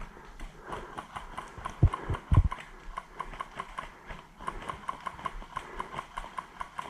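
Rhythmic light clicks and footfalls, about four or five a second, of a player moving on foot with gear jostling. A few low thumps come about two seconds in.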